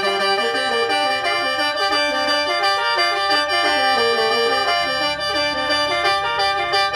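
Khaen, the bamboo free-reed mouth organ, played solo in lai yai mode and pitched in G minor: sustained drone notes under quick, repeating melodic figures.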